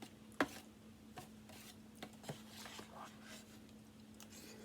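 Quiet eating sounds: soft chewing and mouth noises with a few light clicks, over a steady faint hum.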